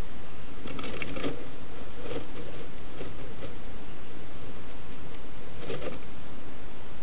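A wren shifting about in its nest box, making short bursts of rustling and scratching in the dry grass nest material: about a second in, twice more around two to three seconds, and again near six seconds. A steady hiss runs underneath.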